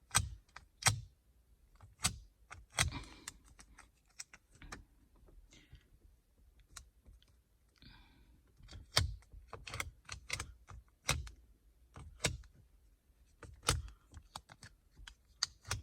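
Irregular light taps and clicks of dust-removal stickers being pressed onto and peeled off a car's infotainment touchscreen, dabbing along its edges.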